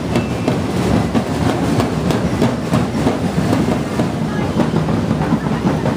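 A street drum band beating large drums in a steady, repeating rhythm, loud throughout.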